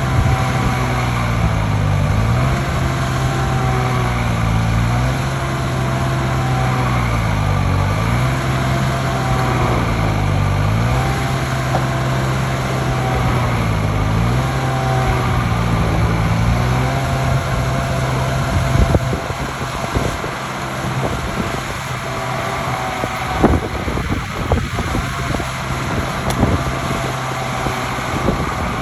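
Engine of heavy stump-removal machinery running under load. Its pitch sags and recovers several times as it works. After about two-thirds of the way in, the engine note gives way to irregular knocks and clatter.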